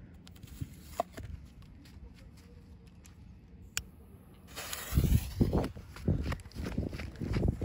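Fireworks canister shell's visco fuse lit by a lighter, catching with a short hiss about four and a half seconds in, followed by quick running footsteps on sandy ground as the lighter gets clear of the mortar tube. A few soft clicks of handling come earlier.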